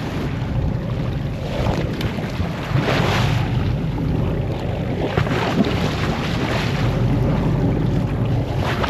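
Wind buffeting the microphone on a boat's deck at sea, over a steady low rumble, with surges of sea water washing against the hull.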